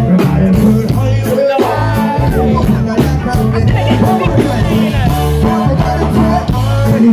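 Live reggae band music: a heavy bass line and drums on a steady beat, with melodic lines over them.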